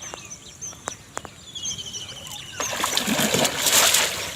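Water splashing for about a second and a half in the second half, the loudest sound here, with small birds chirping and a brief trill before it.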